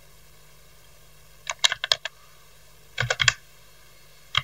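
Computer keyboard typing in two short bursts of quick keystrokes, the first about one and a half seconds in and the second about three seconds in.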